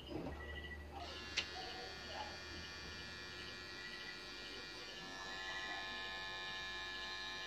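Pen-style tattoo machine starting up about a second in and running with a steady electric buzz as the needle works ink into skin, with a short click just after it starts.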